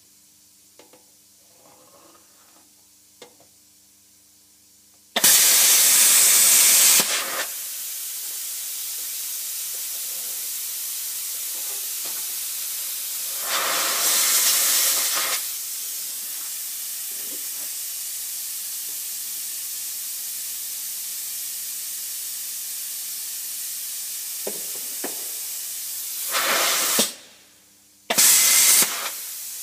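Hypertherm Powermax 30 plasma cutter cutting a curve in sheet metal. A loud hiss starts suddenly about five seconds in and runs steadily with louder swells. It cuts off shortly before the end, then comes back in one brief burst.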